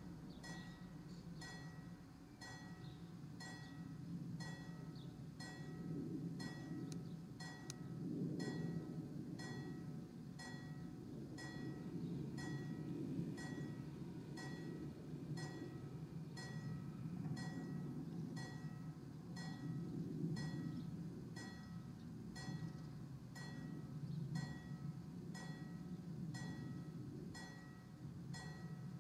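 Level-crossing warning bells striking steadily, about one and a half strokes a second, each stroke ringing with a clear bell tone: the crossing is active. A low rumble swells and fades underneath.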